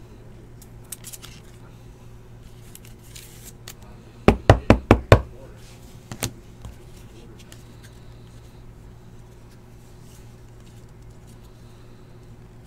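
Five loud, quick knocks on a desk, about five in a second, followed by two fainter taps, as a trading card in its plastic holder is handled and set down.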